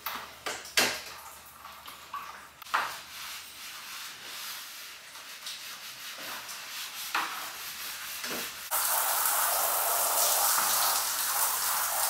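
Scrubbing on the steel of a stainless steel bulk milk tank, with scattered knocks and clicks. About nine seconds in, a hose spray starts suddenly and hisses steadily against the tank, rinsing off the cleaner.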